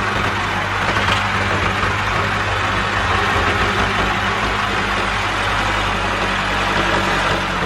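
An engine or motor running steadily at an even idle, with a low hum and no change in speed.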